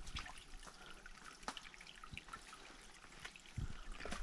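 Faint trickling and dripping of water in a shallow rocky creek, with a few small clicks and a soft knock near the end.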